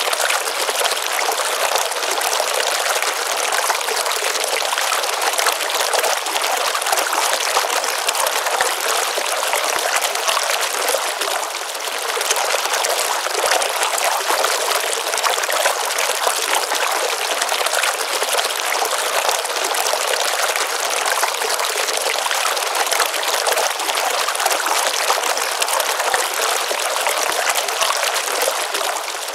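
Water from a small stream pouring steadily into a pond: an even, unbroken rush of trickling and splashing, with little deep rumble.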